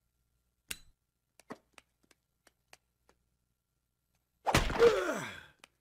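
Cartoon slapstick sound effects: a few faint clicks and taps, then about four and a half seconds in a sudden loud whack, whose tone slides down in pitch over about a second.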